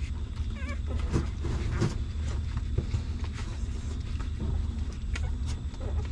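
Newborn puppies suckling at their mother's teats: scattered wet sucking and smacking clicks, with a brief high wavering squeak from a puppy just under a second in. A steady low rumble runs underneath.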